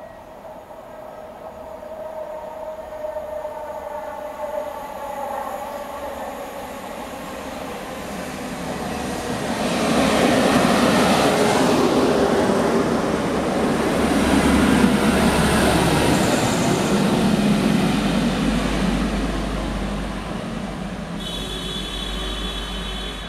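Diesel multiple-unit passenger train running through the station on the near track. Its rumble of engines and wheels on rails builds with faint falling tones as it approaches, is loudest from about ten to seventeen seconds in as it passes, then fades as it draws away.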